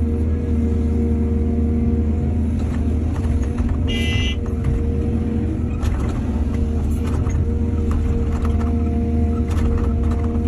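Excavator's diesel engine running steadily, with scattered knocks and a brief high-pitched squeal about four seconds in.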